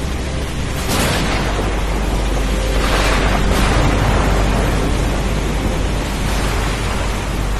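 Heavy rain with a deep rumble of thunder, swelling about a second in and again around three seconds in.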